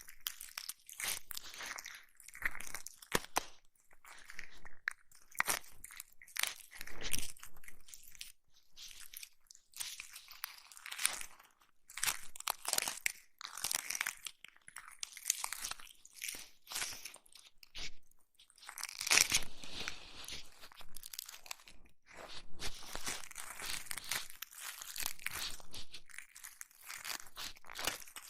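Ear massage sounds on a close microphone: irregular crunchy, crinkling rubbing and scratching strokes.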